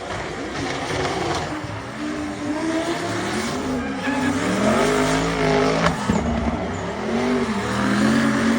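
Toyota 2JZ straight-six engine in a BMW E46 drift car, revving up and down again and again as it drifts, over tyre squeal, with one sharp crack about six seconds in.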